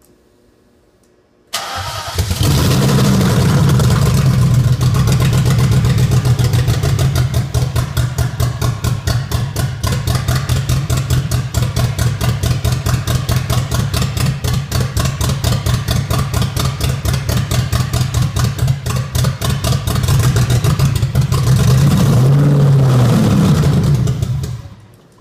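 BMW M60B30 3.0-litre V8 in an E30 starting about a second and a half in and running at a fast idle. It then settles into an uneven, pulsing idle, is revved briefly near the end and is switched off. The engine has a vacuum leak.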